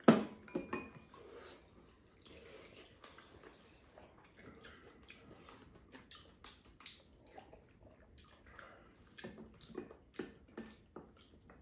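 Eating at the table: spoons clicking and scraping against bowls and a pan, with slurping of soup. A sharp clink right at the start is the loudest sound.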